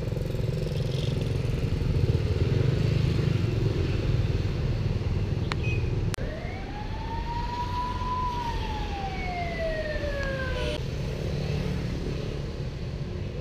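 Steady low rumble of road traffic. Midway, after two sharp clicks, a single siren-like wail rises and then falls in pitch over about four and a half seconds before cutting off.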